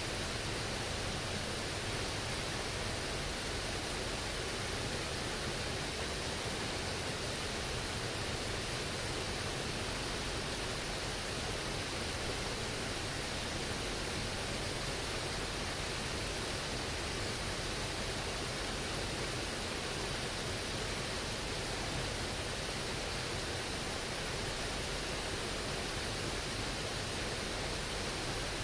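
Mountain torrent rushing steadily over boulders and small cascades, a constant even rush of water with no change.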